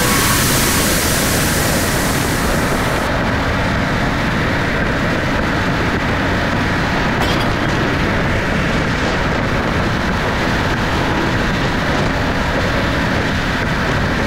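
Subaru BRZ cruising on an expressway: a steady rumble of road and engine noise. A brief click comes about seven seconds in.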